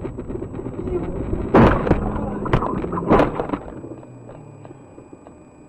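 Car crash: steady road noise, then a loud impact about a second and a half in, followed by two more bangs over the next second and a half, after which the noise dies down.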